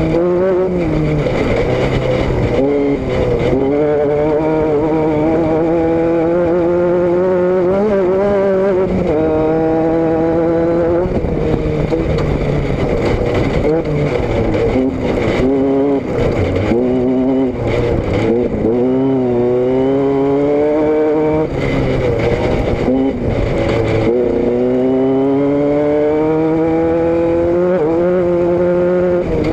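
A car engine and exhaust under way. The engine note climbs steadily under acceleration and drops sharply at each gear change, several times over.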